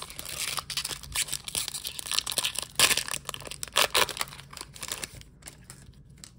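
Foil wrapper of a Pokémon Lost Origin booster pack being torn open and crinkled, with sharper rips about three and four seconds in; the crinkling dies down after about five seconds.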